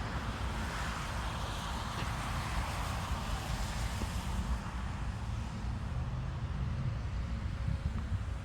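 Street traffic: a vehicle passes, its noise swelling and fading in the first few seconds, over a steady low rumble.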